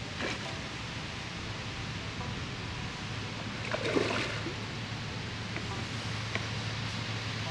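Steady outdoor background noise, an even hiss, with a short faint sound about four seconds in and a few small clicks.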